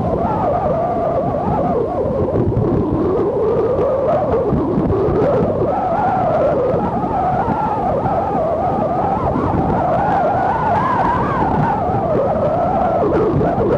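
Strong gale wind at the seashore, howling with a wavering whistle that drifts up and down in pitch over a steady rush of wind and breaking surf.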